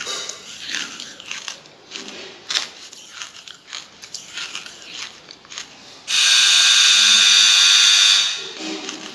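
Charcoal being chewed and crunched close to the microphone, with crisp crackly crunches. About six seconds in a much louder harsh rasping buzz lasts about two seconds and stops suddenly, then the crunching goes on.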